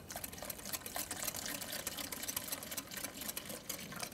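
A small metal whisk clicking rapidly against a glass bowl as it stirs a yogurt, egg and flour sauce, with water trickling in from a kettle.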